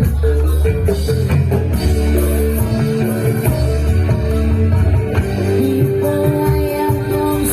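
Loud live accompaniment music for a jathilan horse dance: sustained melodic tones over a heavy, steady low beat.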